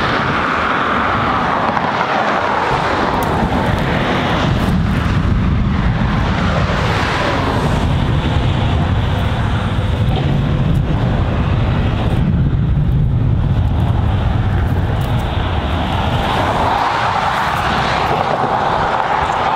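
Motor vehicles passing close by: a steady rush of tyre and engine noise that swells and fades as they go past, with a low rumble in the middle.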